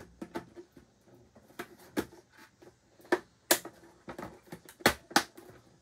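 Hard plastic pieces of a Star Wars Black Series Shadowtrooper helmet being handled and fitted together: several sharp clicks and knocks, the loudest about three and a half and five seconds in.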